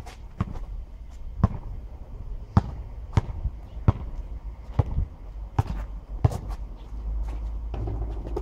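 Basketball dribbled on an asphalt court: about ten sharp bounces at an uneven pace, with a gap near the end as the ball goes up for a shot. A steady low rumble lies beneath.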